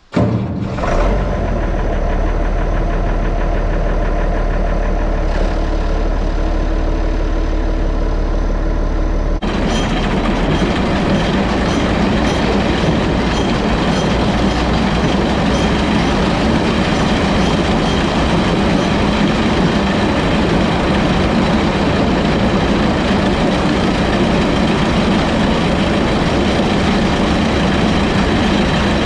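International Harvester 1066 tractor's six-cylinder turbo diesel running steadily, starting suddenly. About nine seconds in the sound changes abruptly to a denser, noisier mechanical clatter, which fits the round baler running behind the tractor.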